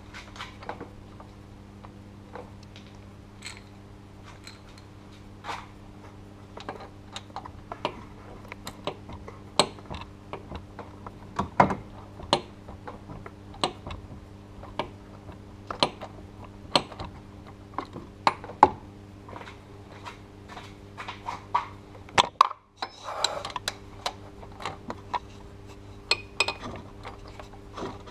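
Irregular metallic clicks and clinks of a socket wrench being fitted to and worked on the serpentine belt tensioner bolt, over a steady low hum.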